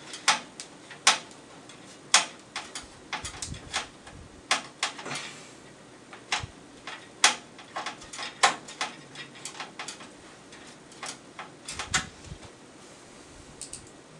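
Scattered sharp clicks and taps of a screwdriver and small screws against a metal PC case while a motherboard is screwed down, coming at irregular intervals and thinning out near the end.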